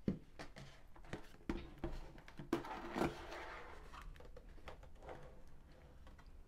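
Cardboard packaging handled on a wooden tabletop: a few soft knocks and scrapes as an inner box is slid out of its sleeve and its lid is opened, with a brief papery rustle about three seconds in.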